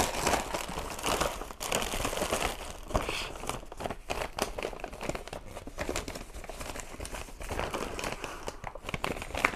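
Brown paper bag crinkling and rustling irregularly as it is handled and its top folded shut.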